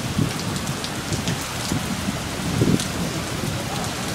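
Heavy thunderstorm rain pouring down in a steady hiss, with scattered sharp drop ticks close by and a few short low thumps, the strongest a little past halfway.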